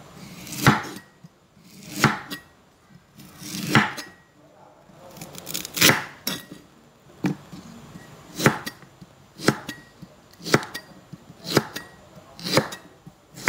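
Cleaver chopping fresh bamboo shoots on a thick round wooden chopping block: about ten sharp knocks of blade through shoot onto wood, roughly one a second.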